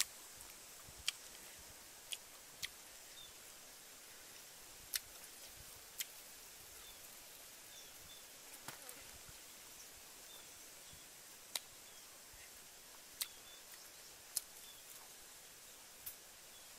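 Sharp, irregular clicks of someone eating grilled pork by hand, smacking and chewing, about one every second or two, over a faint outdoor hiss. Faint high chirps come and go in the background.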